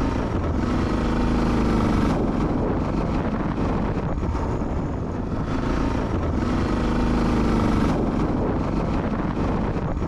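Motorcycle engine accelerating under way, its pitch rising in two pulls about five seconds apart, like shifting up through the gears.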